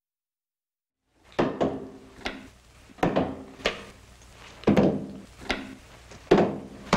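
Logo sound sting: a rhythmic run of heavy percussive knocks, mostly in pairs, each leaving a short low ring, starting about a second in.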